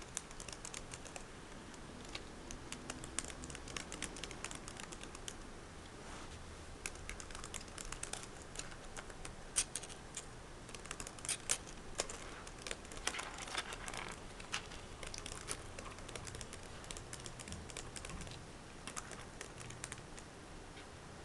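Laptop keyboard keys clicking irregularly under typing fingers, with a denser flurry of clicks about 13 seconds in.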